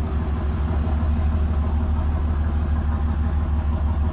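Truck engine running steadily at an even, low pitch.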